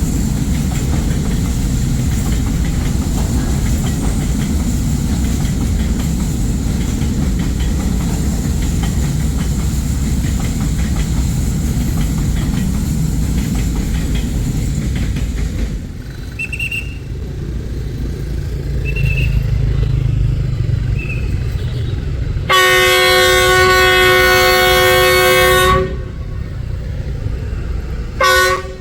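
Freight train hauled by diesel locomotive D19Er-2032 rolling by with a steady heavy rumble. After a sudden change, the locomotive's engine drones, then its new horn sounds one loud blast of about three seconds and a short toot near the end.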